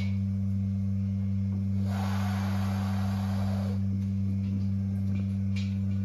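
Steady low hum on two unchanging pitches, with a soft rushing noise for about two seconds in the middle.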